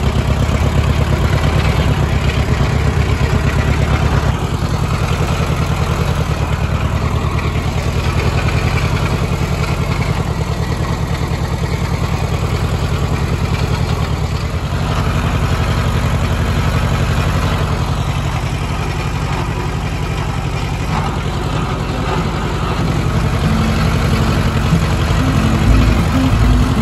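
Case VAC tractor's four-cylinder engine running steadily with an even, pulsing exhaust while the tractor is driven. It gets somewhat louder near the end.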